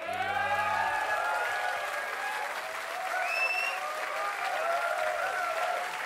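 Concert audience clapping and cheering, with many voices shouting and a whistle about three seconds in.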